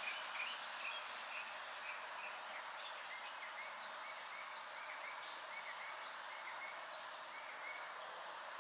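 Small birds chirping in many short, quick repeated notes over a steady hiss of light rain.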